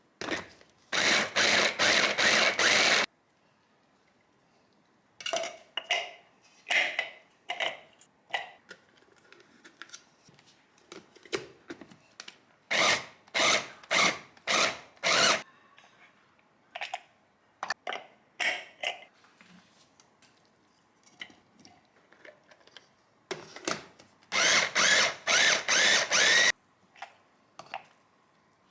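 Chopping with a knife on a cutting board, in several bursts of quick, rapid strokes with pauses between.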